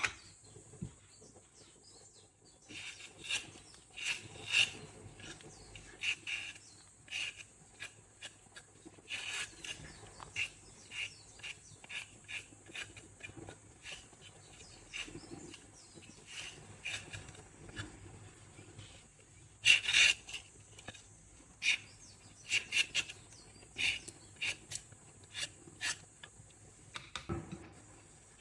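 Kitchen food-preparation sounds: irregular taps, clicks and scrapes of utensils and food being handled, with a cluster of sharper clicks about two-thirds of the way in, over a steady faint hiss.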